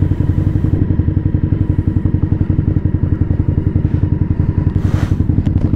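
Motorcycle V-twin engine running at low revs with a quick, even pulse, the bike slowed to a stop at a crossing.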